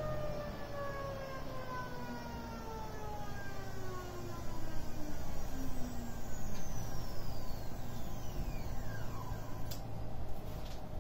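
Electric drive of a 1-metre motorised turntable carrying a 19-litre water bottle, whining with a pitch that falls smoothly over several seconds as the turntable slows from near its top speed. A second, higher whine sweeps down partway through, over a low rumble that grows louder about four seconds in.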